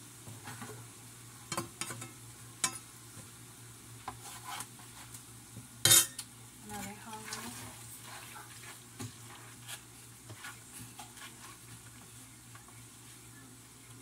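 Plates and serving utensils clinking and scraping as food is dished out, in scattered short knocks with one loud clatter about six seconds in. Under it, a faint steady sizzle from a frying pan of steak.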